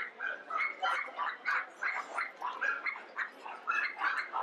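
Dogs yapping and yipping in quick, high-pitched barks, about four a second.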